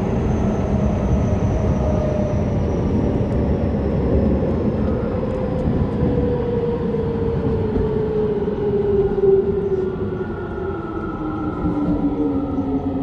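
Keio 9000 series electric train running, with rumble and rail noise under a motor whine that falls steadily in pitch as the train slows.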